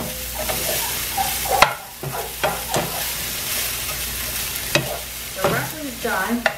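Broccoli sizzling as it sautés in olive oil in a frying pan, with a utensil stirring it and a few sharp knocks against the pan.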